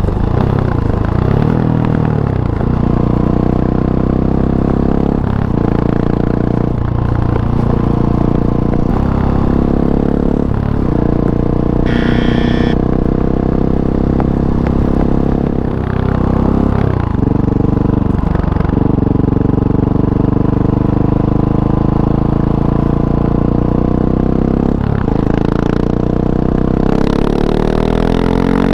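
2019 KTM 690 SMC-R single-cylinder engine running through an Arrow Race-Tech exhaust with the dB killer and catalytic converter fitted. The engine speed repeatedly drops sharply and climbs back, as the throttle is closed and reopened or gears are changed, and it rises near the end.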